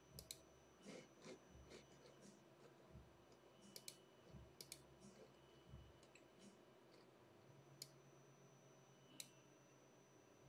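Faint handling noise of a wooden board turned over in the hand: a scattered run of light clicks and taps, the sharpest about four seconds in and again near the end.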